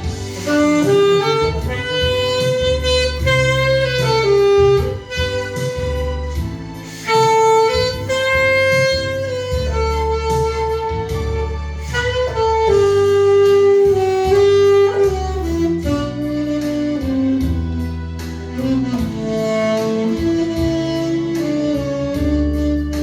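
Saxophone playing a slow melody of long held notes with slides between them, over a backing track with a steady beat.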